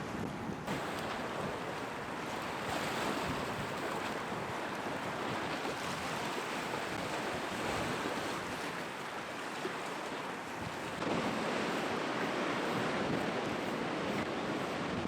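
Rough storm waves surging and breaking along a seafront, with strong gale wind buffeting the microphone. It is a steady wash of noise that changes abruptly twice.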